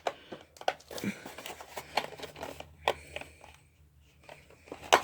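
Plastic toy figures and packaging being handled: irregular light clicks, taps and rustles, with a sharper click just before the end.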